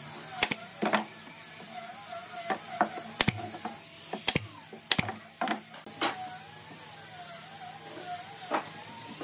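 Wood and tools being handled in a workshop: a dozen or so sharp knocks and clicks at uneven spacing, over a faint wavering tone.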